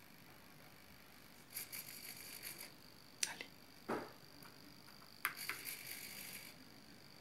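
Small servo motor of a 3D-printed model barrier whirring for about a second as the arm swings down. A couple of sharp clicks and a knock follow, then it whirs again for about a second as the arm swings back up. A faint steady high whine sits underneath.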